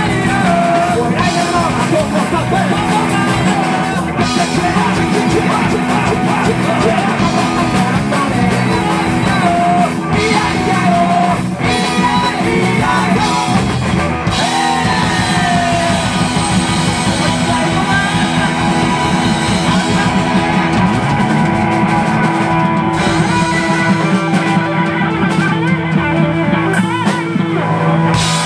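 Rock band playing live: electric guitar and a Yamaha drum kit, with singing over them.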